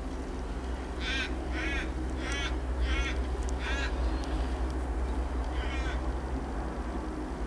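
A bird calling: five calls in quick succession, then one more a couple of seconds later. Beneath them is the steady low running of a Yanmar compact excavator's diesel engine.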